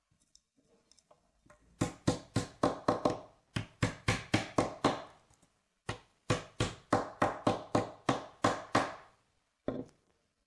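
A flat wooden block strikes thin kumiko wood strips to seat them flush in the coaster frame: three runs of quick, light wooden taps, about six a second, with short pauses and a last single tap near the end.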